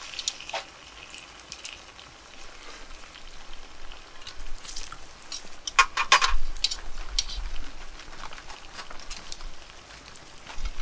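Light crackling and sizzling from a Dutch oven of fish and tomatoes hanging over a wood fire, with a short cluster of sharp clicks about halfway through.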